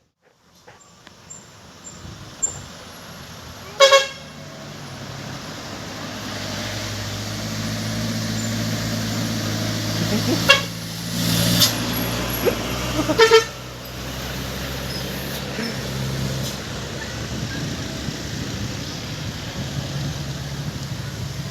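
Bus horn honking in short blasts, once about four seconds in and several more times between about ten and thirteen seconds, over the hum of a diesel bus engine that builds as the bus draws near.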